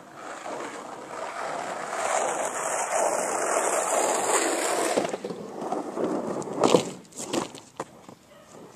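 Skateboard wheels rolling, growing louder as the board approaches, until the rolling stops about five seconds in. A few sharp clacks follow, the loudest about seven seconds in, as the board strikes the plywood ramp and lands.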